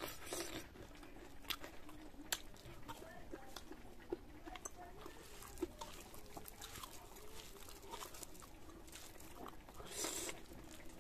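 Close-up eating sounds: chewing with wet mouth clicks and lip smacks as rice is eaten by hand. A few sharp clicks stand out, about one and a half, two and a half, four and five and a half seconds in.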